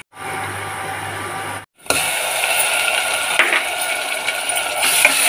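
Sliced onions frying in hot oil in an aluminium pressure cooker: a steady crackling sizzle, cut off twice briefly in the first two seconds.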